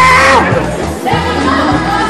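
Music with a singing voice over a steady beat of about two beats a second.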